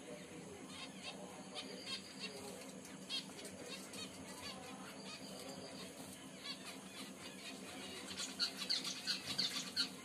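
Caged pet finches calling with short chirps, scattered at first and then a louder, quicker run of calls near the end.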